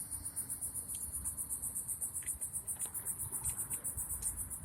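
Insects chirping: a steady, rapid, high-pitched pulsing trill.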